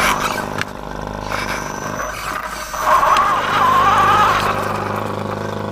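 Motor and gears of a radio-controlled rock crawler running as it drives, with its knobby tyres rolling over gravel, heard from the camera mounted on the vehicle. The motor whine gets louder and wavers in pitch about three seconds in, then settles.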